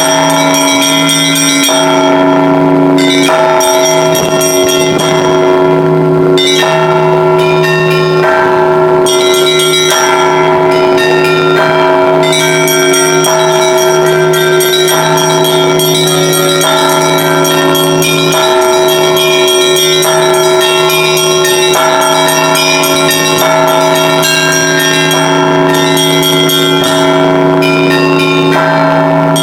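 Russian church bell ringing (zvon): a set of bells rung together by a bell ringer, with quick, continuous strikes of the smaller, higher bells over the steady ring of a lower bell. The mix of bells changes every second or two.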